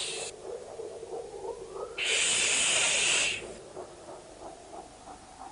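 A child's hushing "shhh", heard twice. The first ends just after the start, and the second comes about two seconds in and is held for over a second.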